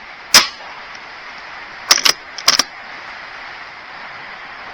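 A single shot from a BSA Super10 .22 pre-charged air rifle, a sharp crack about a third of a second in. About two seconds in come two pairs of quick metallic clicks as the bolt is worked to load the next pellet.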